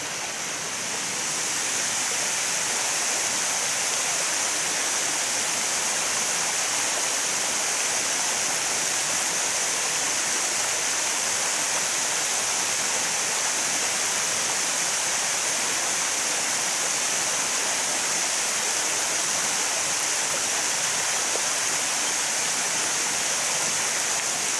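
Water pouring over a concrete check dam (sabo dam) into the pool below: a steady, even rush. It grows a little louder about a second in and then holds.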